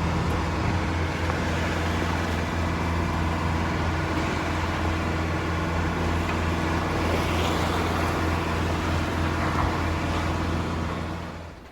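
Boat engine running at a steady speed, a constant low drone with rushing wind and water noise over it. It drops away suddenly near the end.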